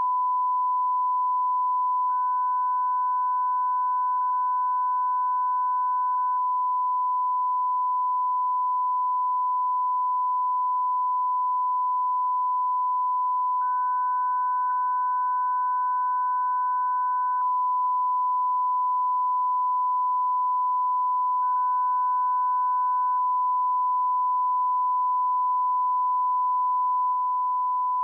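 Steady 1 kHz reference test tone, the line-up tone that plays with colour bars, held unbroken at one pitch and one level. A much fainter higher tone comes and goes three times.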